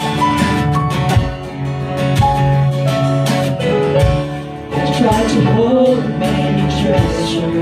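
Worship-song band music with acoustic guitar strumming and held chords, and a voice singing a short wavering phrase about five seconds in.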